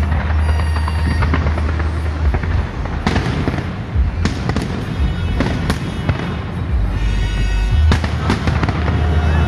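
Fireworks bursting in quick, irregular succession, sharp bangs and crackle over a steady deep bass from loud music.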